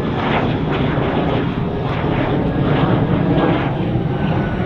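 Lockheed U-2 Dragon Lady's single turbofan jet engine heard from the ground as the aircraft passes overhead: steady jet noise that wavers slightly. The aircraft is in landing configuration with its clamshell speed brake open, and the pilot is putting power on against that drag for better throttle response.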